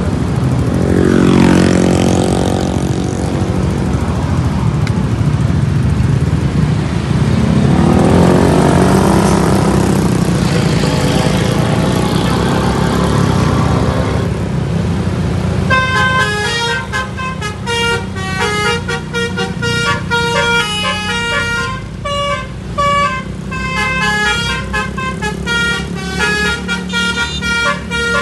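A bus engine revving up twice as the bus pulls away. Then, about halfway through, a basuri horn (a multi-tone musical bus horn) starts playing a quick tune of short stepped notes, which runs on to the end.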